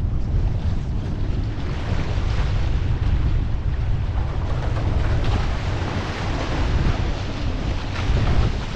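Wind buffeting the microphone as a low, steady rumble, over the rush and splash of choppy water along a one-person outrigger canoe's hull and outrigger float as it is paddled downwind.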